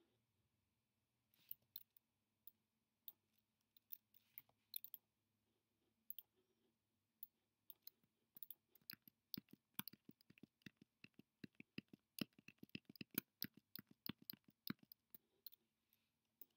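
Faint clicks of a computer mouse, scattered at first, then a fast run of rapid clicks from about halfway in.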